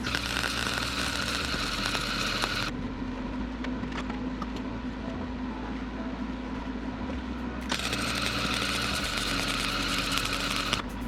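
Arc welder laying weld beads around a go-kart wheel rim to rejoin it to its hub: a steady hissing arc for a couple of seconds, a pause of about five seconds with only a low hum, then the arc again until near the end.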